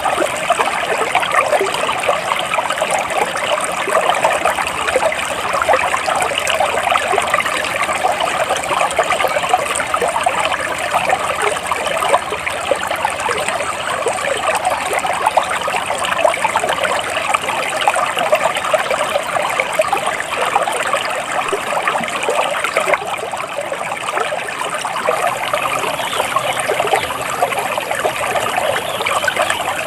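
A shallow stream trickling and babbling steadily.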